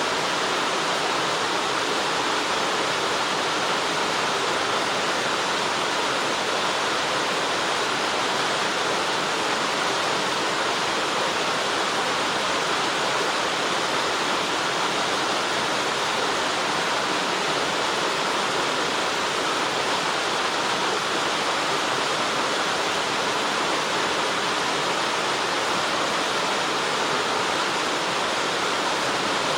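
Waterfall: water falling and rushing in a steady, even hiss that does not change.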